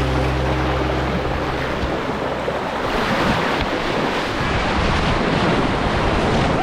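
Steady, loud rush of flowing water at a river's natural rock waterslide, with some wind on the microphone. Background music fades out about two seconds in.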